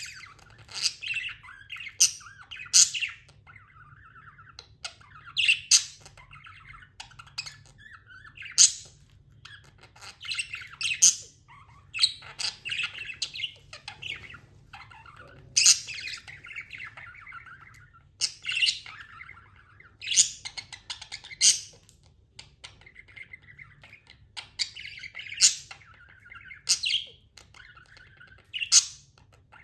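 Budgerigars chirping: loud, sharp calls every couple of seconds over quieter, continuous warbling chatter.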